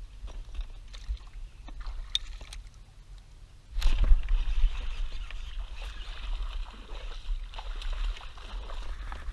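A hooked bass splashing and thrashing at the water's surface beside a kayak. It starts suddenly about four seconds in and goes on as a steady wash of splashing over a low rumble.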